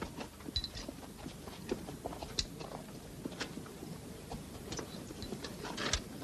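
Light, irregular clicks and knocks, about one a second, over a quiet background.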